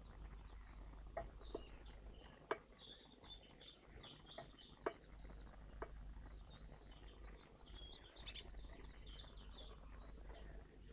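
Faint chirps of small songbirds at a garden bird bath, with several sharp taps in the first half.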